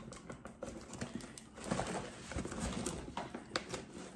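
Fingers picking and scratching at packing tape on a cardboard box, with rustling and many small clicks.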